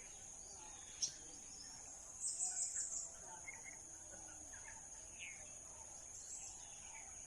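Steady high-pitched insect chorus with a few short bird chirps scattered through, including a louder trilling patch about two seconds in. A single sharp click about a second in.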